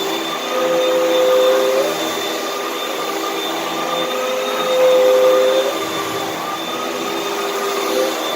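Vacuum cleaner running steadily while picking up dirt. Twice a higher tone comes in and the sound grows louder for a second or so as the suction changes.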